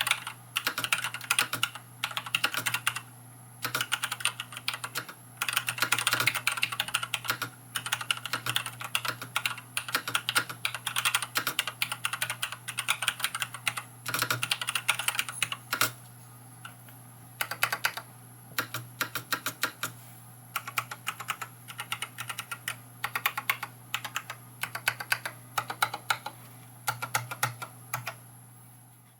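Typing on a Varmilo VA108M full-size mechanical keyboard with Gateron Brown switches and PBT keycaps: quick runs of key clicks in bursts, broken by short pauses.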